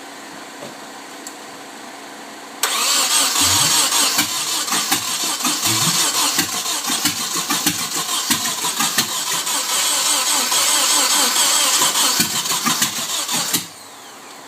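Nissan 240SX's KA24DE inline-four being cranked by the starter for about eleven seconds without catching, starting about two and a half seconds in and cutting off abruptly near the end. It is a no-start that the owner says persists despite spark, fuel and correct timing.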